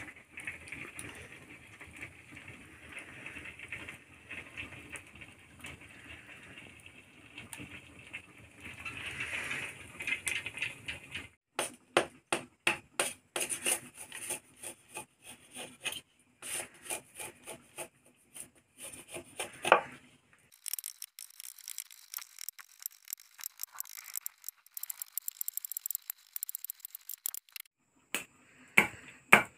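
A steady hiss for the first third, then a knife chopping into cooked bamboo tubes: a run of sharp knocks, several a second at times, then a few seconds of high scraping, and two more loud knocks near the end.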